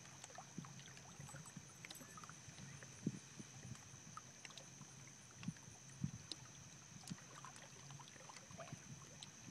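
Faint waterside ambience: small waves lapping against rocks, with scattered light taps and soft thumps and a steady faint high-pitched tone.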